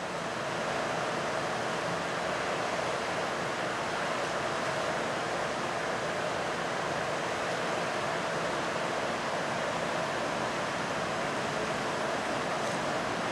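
Steady outdoor background noise: an even wash of hiss and low rumble with no distinct events.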